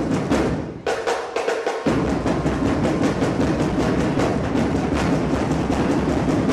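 Drum squad's marching drums playing a fast, steady cadence for a drill team routine. The low drums drop out for about a second near the start, then the full beat comes back.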